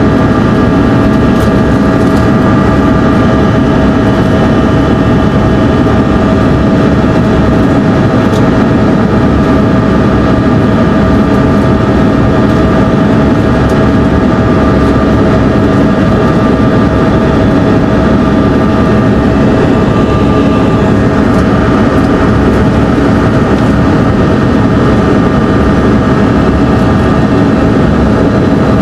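Cabin noise inside a Bombardier CRJ-200 regional jet in flight: the steady hum of its rear-mounted General Electric CF34 turbofans mixed with air rushing past the fuselage, with a few steady whining tones over it.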